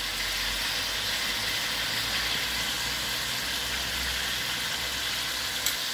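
Chicken pieces frying in hot oil in a steel karahi: a steady sizzle with a low rumble underneath and a single short click near the end.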